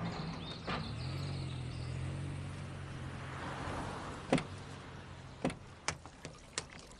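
A vehicle engine running steadily with a low hum that fades a little. Several short sharp clicks come over the last three seconds.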